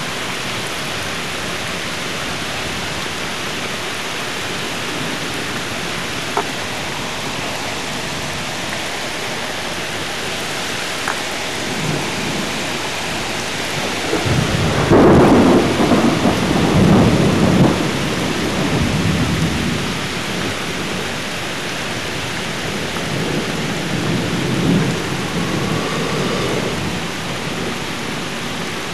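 Steady heavy rain with a long rumble of thunder that swells about halfway through, is loudest for a few seconds, then dies away, followed by a weaker rumble near the end.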